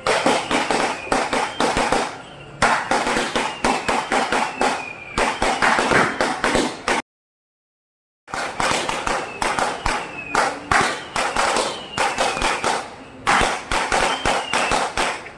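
Strings of firecrackers going off in a dense, rapid crackle of sharp cracks, with a few faint falling whistles through it. The crackle breaks off for about a second of silence midway.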